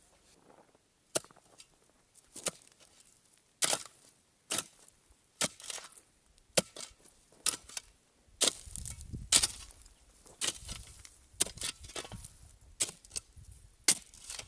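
A series of sharp knocks or strikes at an uneven pace, about one or two a second, with a low rumble under them around the middle.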